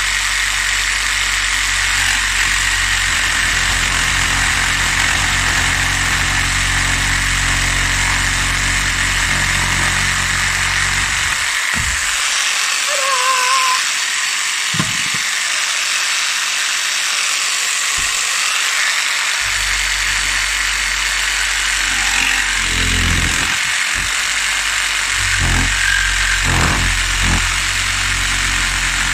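Handheld jigsaw cutting a thin wooden strip freehand, running steadily. It stops for several seconds near the middle, with a few knocks, then starts cutting again.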